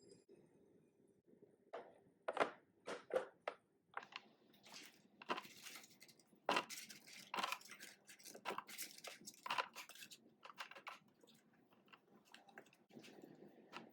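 Irregular crinkling, rustling and light knocks of packaging being handled, as produce is unpacked and sorted. They come in quick bunches of sharp crackles that thin out near the end.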